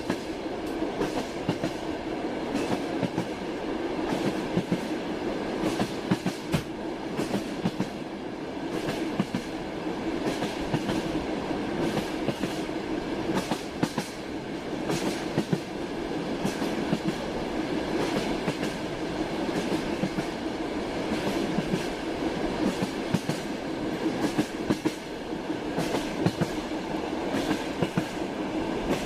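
Train running steadily, its wheels clattering and clicking over the track joints above a continuous running hum.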